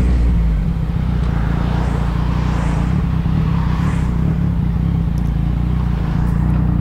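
Yamaha MT-09's three-cylinder engine running steadily through a loud aftermarket exhaust while the bike cruises slowly in traffic.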